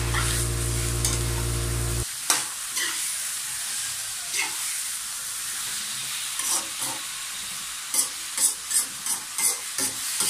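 Raw chicken pieces sizzling with onion and garlic in a hot honeycomb-textured wok, turned with a spatula that scrapes and taps against the pan, most busily near the end. A low steady hum cuts off about two seconds in.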